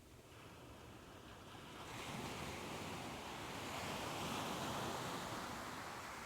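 Ocean waves washing onto a shore: a soft rush of surf that swells about two seconds in, peaks, then slowly eases back.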